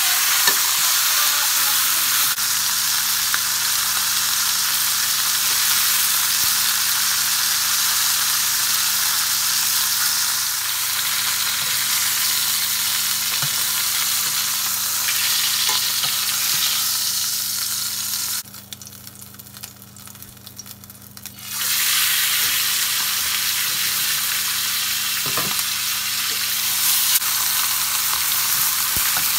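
Chicken pieces sizzling steadily as they sear in hot oil in a stainless steel skillet, with a few light taps of metal tongs against the pan as they are turned. The sizzle drops away for about three seconds past the middle, then returns.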